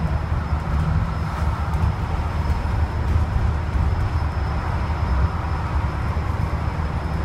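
Steady cabin noise on the upper deck of a Wright StreetDeck double-decker bus cruising at motorway speed: a deep, even rumble of engine and tyres with road hiss over it and a faint high whine.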